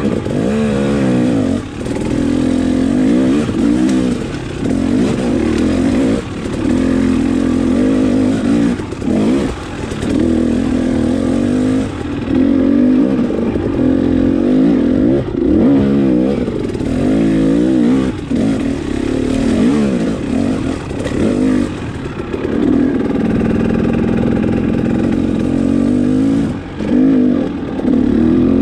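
KTM dirt bike engine working hard up a steep rocky climb, its revs rising and falling over and over as the throttle is opened and closed.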